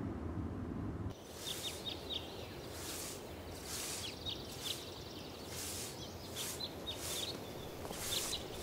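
Small birds chirping in quick clusters of short high chirps over a soft outdoor ambience with repeated hissy swishes. Before about a second in, a low steady rumble that cuts off abruptly.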